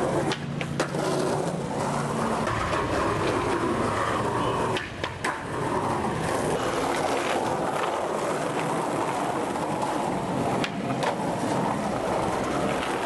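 Skateboard wheels rolling over a concrete sidewalk, with a few sharp clacks of the board hitting the ground at tricks and landings.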